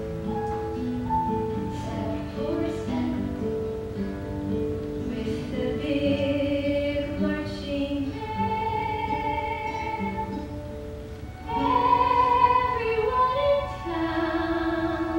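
A woman singing a slow musical-theatre ballad with instrumental accompaniment; the music swells louder about eleven and a half seconds in.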